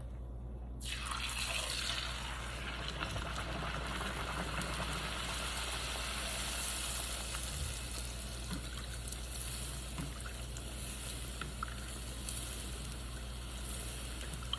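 Hot cooking oil sizzling around a puffy taco shell frying in the pan. The sizzle starts suddenly about a second in, then runs steadily with a few small pops.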